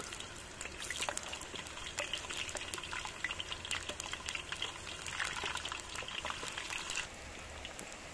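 Raw potato sticks dropped into hot oil in a large pan, sizzling and crackling with many sharp pops as they start to fry. The sizzle cuts off about seven seconds in.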